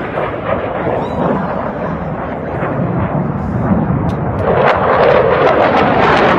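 Jet aircraft engine noise from a display jet flying over, growing louder and turning crackly from about four and a half seconds in.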